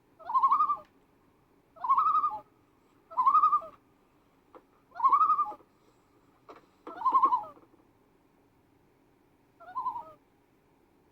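Adult loon calling: a series of six short, wavering calls at about the same pitch, one every second or two, the last one weaker.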